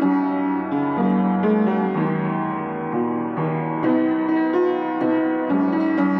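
Piano or keyboard music: sustained chords and melody notes changing about every half second to a second, with no percussion.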